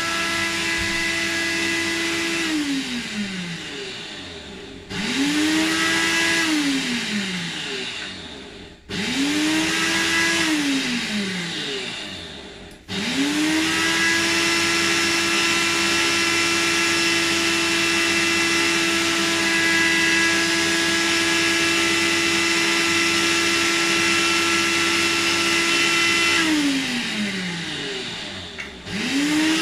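Electric blender blending a fruit-and-vegetable smoothie, running in bursts. It runs, winds down with a falling whine, spins up briefly twice more, then runs steadily for about thirteen seconds before winding down, and starts again near the end.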